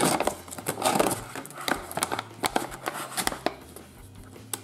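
Plastic-foil toy blind bag crinkling and crackling as hands pull and twist at it to tear it open; the bag resists tearing. The crinkling is dense for about three and a half seconds, then eases off.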